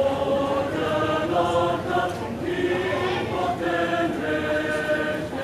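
Mixed choir of men and women singing in harmony, moving through a series of held chords.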